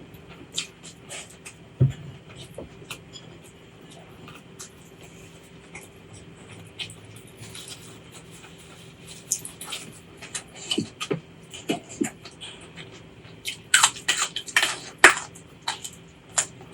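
Close-up eating sounds: a person chewing food, with scattered wet mouth clicks and crunches that thicken into a quick run of crisp crunches about two-thirds of the way in.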